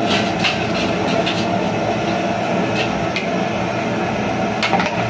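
Steady roar of the burner and rolling boil under a large aluminium biryani pot, with a few sharp metal clinks and scrapes as a ladle mixes the rice into the chicken.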